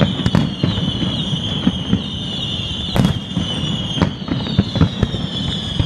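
Aerial fireworks going off: sharp bangs and crackles at irregular intervals over a continuous low rumble, with a sustained high whistle that slowly falls in pitch.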